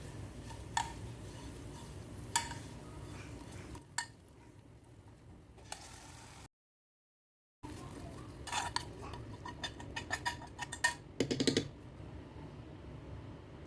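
Kitchen utensils clinking against pots and dishes: four separate clinks, then after a short break a quick run of clattering near the end, over a low steady hum.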